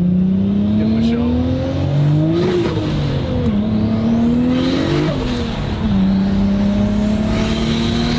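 Car engine heard from inside the cabin, accelerating hard through the gears. The engine note climbs with the revs and drops sharply at two quick upshifts about two and a half and five seconds in, then holds steady.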